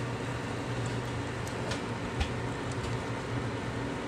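A pancake frying in a cast-iron skillet, a steady hiss, over the low hum of a microwave running with bacon inside, with a few faint ticks.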